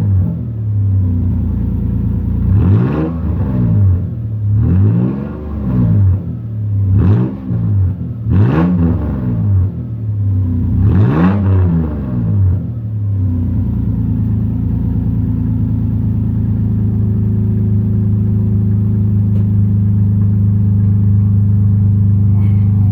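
2001 Toyota 4Runner engine through a straight-piped exhaust fitted with a homemade Helmholtz resonator in place of the muffler, blipped five times in short low revs to about 2,500 RPM, each rising and falling. After that it settles into a steady idle about 13 seconds in.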